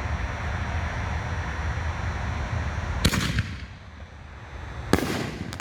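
Consumer canister firework shell going off: a steady rush for the first three seconds, then a sharp boom about three seconds in and a second boom about two seconds later, each with a short echo.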